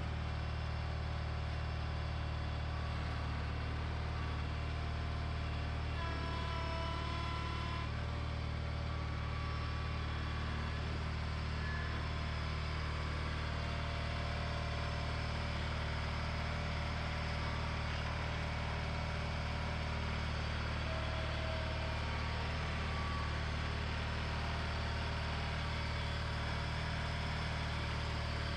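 John Deere 420 garden tractor's twin-cylinder engine running at a steady speed as the tractor moves slowly.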